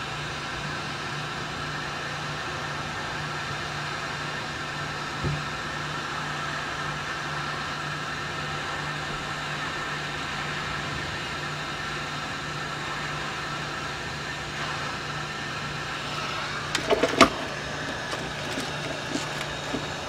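Hot-air rework station's heat gun blowing, its fan giving a steady hum with a faint whine, shrinking heat-shrink tubing over a crimped wire connector. A few clicks and knocks come near the end.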